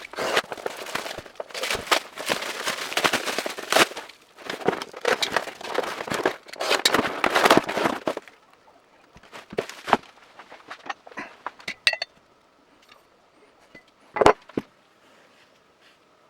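Hand work on a motorcycle handlebar: a dense run of rapid clicking and rattling for about eight seconds, then scattered separate clicks and one sharp knock near the end.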